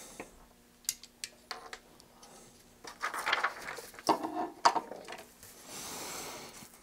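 Handling noise on a wooden workbench: a few light clicks and knocks as a small metal-boxed RF amplifier module is moved, then a printed paper schematic rustling and sliding as it is laid flat, with a soft hiss near the end.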